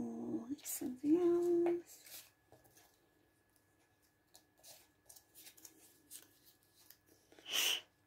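Two short wordless hums in the first two seconds, then soft paper handling as small picture cut-outs are picked up and laid on a journal page, with a brief rustle near the end.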